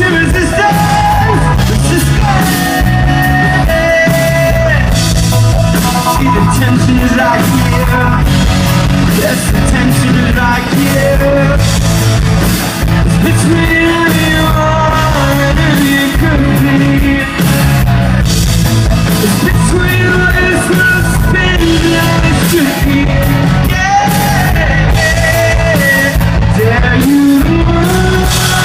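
Live rock band playing loudly, with electric guitars, bass and drums and singing over them.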